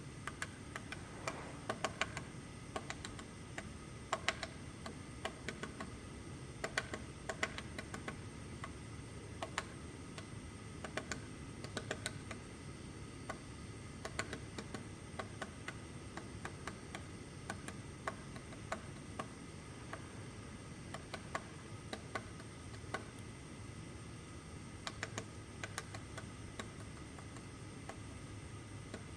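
Woodpecker pecking at wood: irregular sharp taps, some in quick clusters, with pauses of a second or more between bouts.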